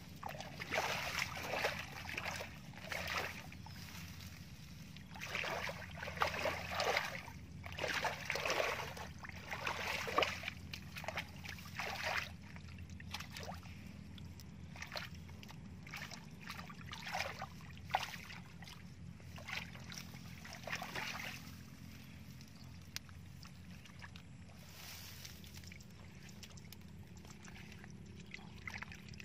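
Bare feet sloshing and splashing through shallow water over mud, in irregular bursts that thin out about two-thirds of the way through. A steady low hum runs underneath.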